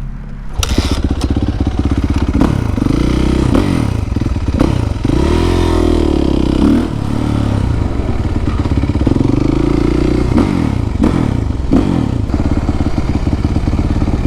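Suzuki RM-Z450's single-cylinder four-stroke engine, with a freshly rebuilt top end, revving hard as the supermoto pulls away. It gets loud about half a second in, and its pitch then rises and drops several times as the bike accelerates.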